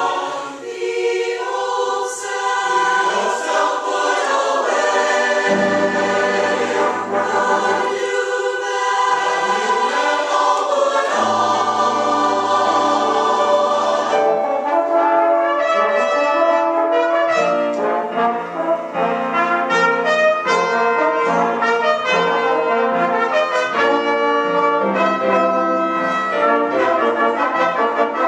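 Christmas choir singing with brass instruments accompanying; about halfway through the music changes to brass playing short, separate notes.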